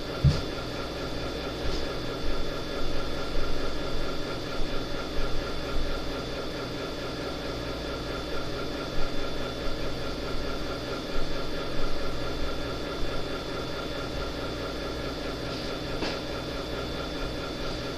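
A steady mechanical hum with a regular low pulsing, and a few louder knocks or handling sounds scattered through it.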